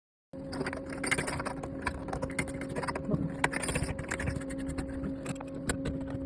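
Irregular sharp clicks and light knocks of hand work on a shower valve and its fittings, over a steady hum.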